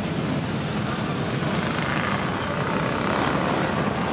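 A line of cruiser motorcycles riding slowly past, their engines and exhausts making a steady low rumble. It gets a little louder after about two seconds as the bikes come closer.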